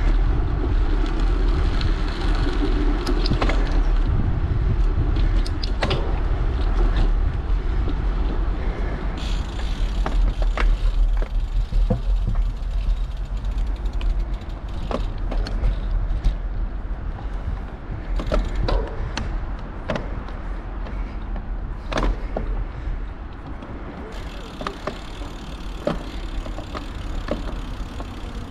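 Riding a bicycle with a handlebar-mounted camera: steady wind buffeting on the microphone and tyre rumble, with scattered sharp clicks and rattles from the bike as it rolls over the path and paving.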